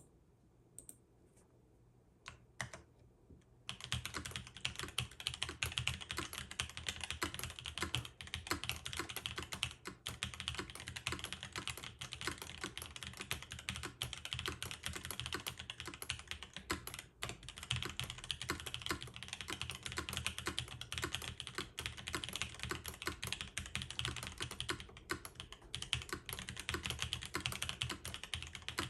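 Typing on a gasket-mount mechanical keyboard with an aluminium plate, lubed and filmed Prevail Epsilon switches and GMK keycaps, giving a deep "thocky" clatter. A few scattered keystrokes come first, then fast continuous typing starts a few seconds in and runs on with only brief pauses.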